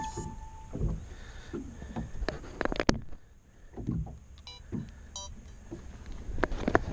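Small boat rocking on choppy water: waves slap against the hull in irregular knocks, over a steady low wind rumble on the microphone.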